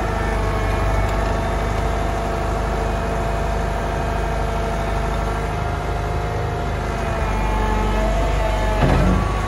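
Atlas 1404 tracked excavator's diesel engine running steadily, with a continuous whine over it as the boom and bucket are worked. The sound gets louder about seven seconds in, with a brief louder surge just before the end.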